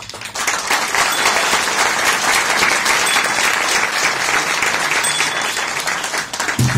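Theatre audience applauding at the curtain call, a steady dense clapping of many hands. Music with a low beat starts again just before the end.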